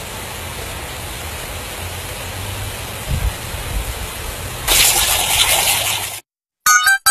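Pop-up lawn sprinkler head spraying a jet of water: a steady hiss that grows louder about five seconds in, then cuts off suddenly.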